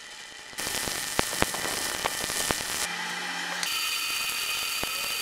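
Stick welding on steel: the welding arc crackles and sizzles with sharp pops. The arc starts about half a second in, breaks off briefly about three seconds in, then strikes again.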